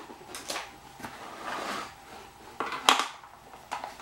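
Hard plastic casing of a Back2Life massage machine being handled: scattered clicks and knocks, the sharpest about three seconds in, with a short soft rubbing sound between them.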